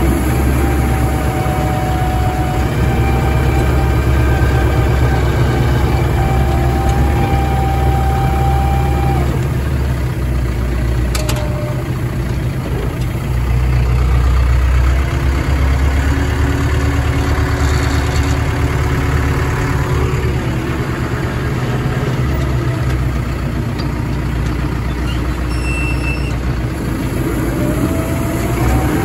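Heavy machinery engine running steadily with a deep hum, with a higher whine that rises at the start, holds for about nine seconds, and rises again near the end.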